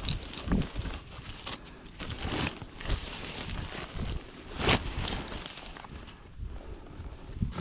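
Tree climber's rope and metal climbing hardware scuffing and knocking against the trunk as the flip line is flipped up. The sound is made up of irregular rustles with a few sharp knocks, the strongest near the end.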